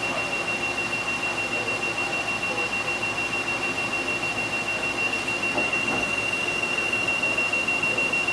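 A steady high-pitched tone, held without a break, over a constant machine hum from a CNC machining center.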